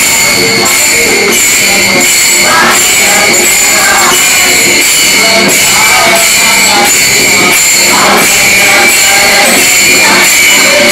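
Women singing a devotional chant in unison while clashing small brass hand cymbals (taal) in a steady beat of about two strokes a second. The cymbals' bright ringing carries on continuously over the voices.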